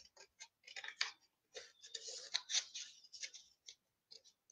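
Scissors cutting through painted paper: a run of short, irregular snips.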